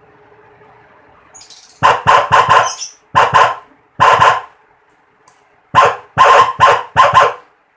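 Homemade six-tone electronic police siren giving short, bark-like blasts in uneven groups, about a dozen in all, starting a couple of seconds in after a brief quiet gap.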